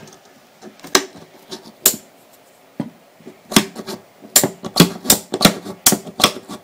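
Tippmann A5 paintball marker with a Cyclone feed being cycled repeatedly, a sharp clack at each shot as the Cyclone advances. Three shots come about a second apart, then about halfway through a quicker string of about three a second. It is running on a freshly reinstalled plastic ratchet set, and the owner calls it very smooth with no misfires.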